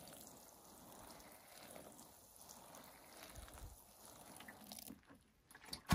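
Water sprinkling from a watering can's rose onto the potting soil of a seedling plug tray and the turf beside it. A soft, steady hiss that stops about five seconds in.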